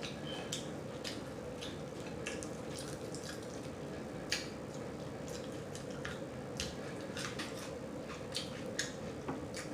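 A person chewing a cheeseburger and fries with mouth-open smacking: scattered wet clicks, a few each second, over a steady background hum.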